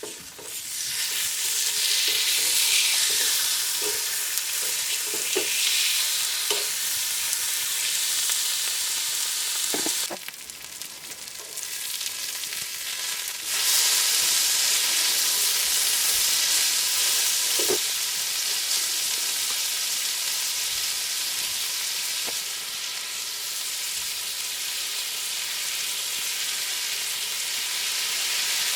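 Food frying in a hot pan, a loud steady sizzle that starts suddenly, drops away for a few seconds midway, then comes back stronger, with a few light knocks.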